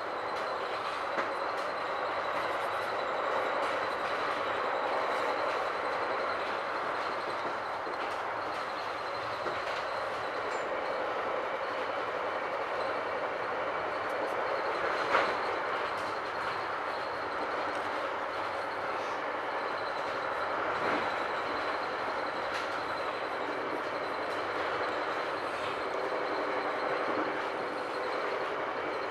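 Steady running noise heard from inside a moving Metra commuter train car, the wheels and car body rumbling along the rails. A sharp click stands out about halfway through, with a smaller one near the start.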